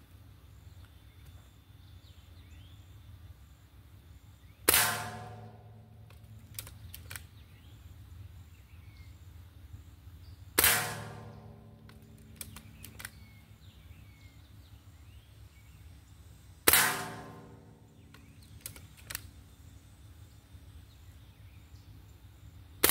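Gamo Swarm Whisper .22 break-barrel air rifle fired three times, about six seconds apart, each a sharp crack as the pellet strikes a steel target, which rings and fades over about a second; a fourth shot lands at the very end. Faint clicks come between shots as the rifle is cocked.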